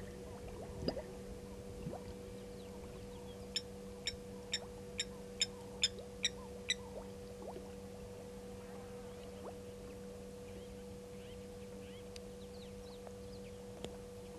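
A bird calls a series of about eight sharp, high notes, about two a second, rising in loudness and then fading, over a steady low electrical hum. Two dull thumps come in the first two seconds, and faint chirps come later.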